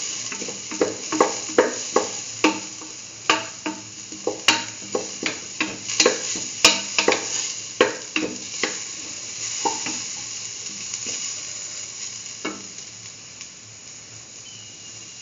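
Diced chayote sizzling as it sautés in ghee in a metal pan, with a spatula scraping and knocking against the pan as it is stirred. The stirring strokes come quickly for most of the first nine seconds, then only now and then while the sizzle carries on.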